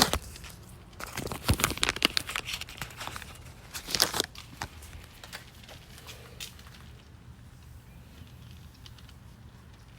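Crinkling, crackling rustle of handled material for about the first four seconds, then it dies away to a faint steady background.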